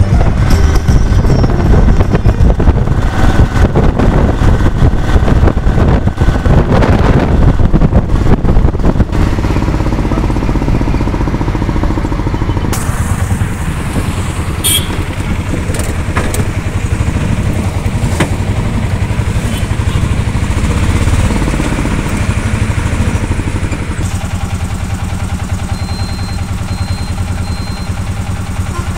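Auto-rickshaw's small engine running as it drives along, heard from inside the open cab with a fast, even buzz. It is louder and rougher for the first several seconds, then settles into a steadier, slightly quieter run.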